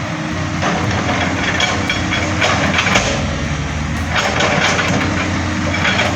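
Large Doosan excavator's diesel engine running steadily, with four bursts of harsh noise over it, each up to about a second and a half long.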